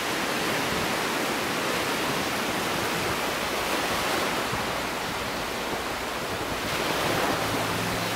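Ocean surf washing onto a beach, a steady rush that swells and eases slightly; soft music notes come in near the end.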